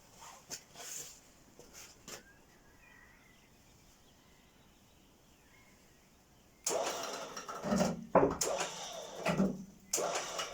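A few faint clicks, a few seconds of near quiet, then from about two-thirds of the way in a loud run of knocks, clatter and scraping.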